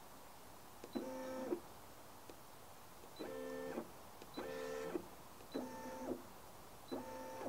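Brother LB5000S embroidery unit's carriage motor driving the hoop five times. Each move is a steady whine of about half a second, set off by a short touchscreen beep. The hoop is being moved to the corners of the design to check the embroidery placement.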